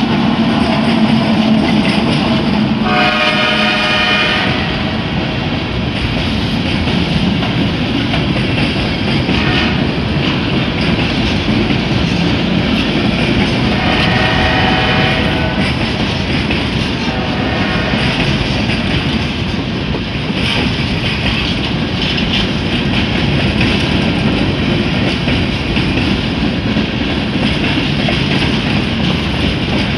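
Freight train rolling past a grade crossing: the last of the Union Pacific diesel locomotives drones by in the first couple of seconds, then boxcars follow with a steady rumble and rattle of wheels on rail. Brief drawn-out tones rise over the noise about three seconds in and again around fourteen and seventeen seconds.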